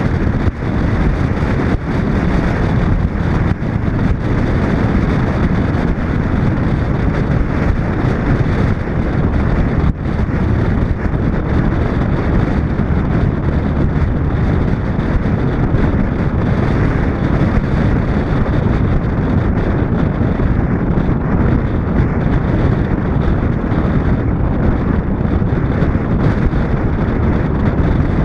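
Steady rush of wind on a camera microphone mounted outside a driving 1941 Chevrolet, mixed with the car's road noise.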